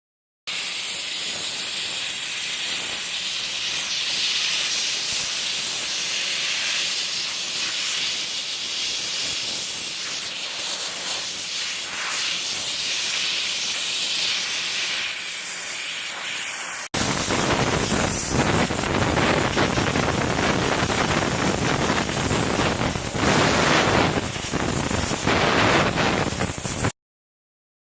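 A water sprayer hissing steadily, rinsing air conditioner parts during cleaning. About 17 seconds in, after a sudden cut, the spray becomes louder and fuller.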